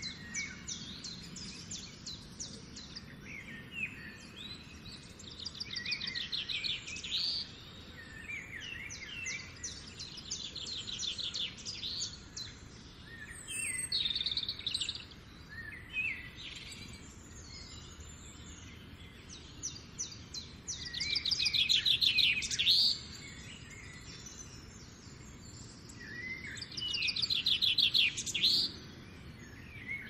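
Small songbirds singing: high, rapid trilled phrases that repeat every few seconds, with the loudest about two-thirds of the way in and again near the end. Faint steady outdoor background noise lies underneath.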